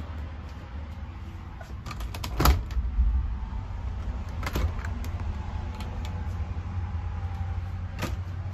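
RV refrigerator and freezer doors being handled and shut, giving a few sharp knocks and latch clicks, the loudest about two and a half seconds in, over a steady low hum.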